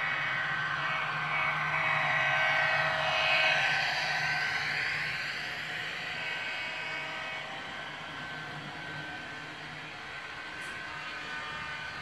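Model diesel locomotive with a DCC sound decoder running past, its small speaker playing a diesel engine sound over the rolling of its train on the track. It is loudest about three to four seconds in, as the locomotive passes close, then fades as the well cars follow.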